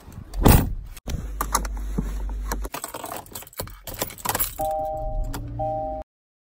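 Getting into a car: a car door shuts with a thump about half a second in, followed by keys jangling and handling clatter, broken by abrupt cuts. Near the end two steady tones sound together twice, briefly, before the sound cuts off.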